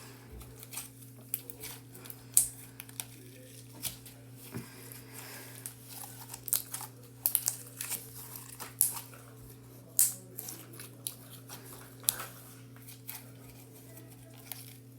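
Jelly slime being squeezed and stretched by hand, making irregular sharp clicks and pops; the slime is, by its owner's reckoning, a little overactivated, so it tears easily.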